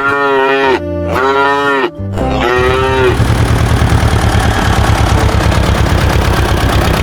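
Three short moos, one after another, high-pitched like a calf. Then a fast, low pulsing sound starts and runs on evenly.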